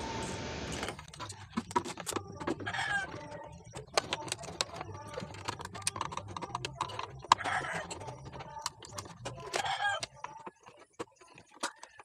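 Screwdriver and small metal parts of a ceiling fan clicking and clinking as the screws holding the blades to the motor housing are worked loose, with a steady stream of sharp clicks. Three short hen-like clucks sound in the background, a few seconds apart.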